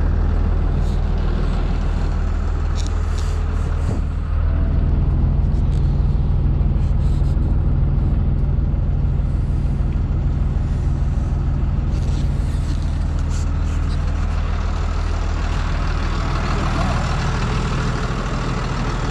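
Tow truck's engine running steadily, a loud, even low drone, with a few light clicks and rattles over it.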